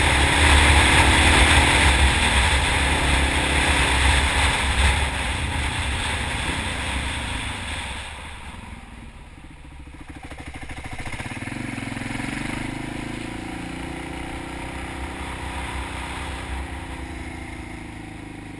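Honda XR650 supermoto's single-cylinder four-stroke engine running hard, with a loud rush of wind. It backs off and the sound falls away about eight seconds in, then the engine picks up again with a rising tone around eleven seconds and runs more quietly near the end.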